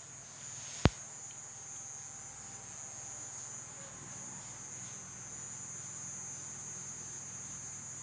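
A dog snoring faintly and low under a steady high-pitched insect chirring, with one sharp click about a second in.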